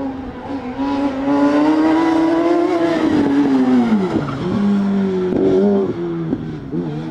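A Suzuki autoslalom car's high-revving ZX-12R motorcycle inline-four, run hard through the course: its pitch climbs for about three seconds, drops sharply as the throttle comes off, then runs at lower revs with short dips and blips through the turns.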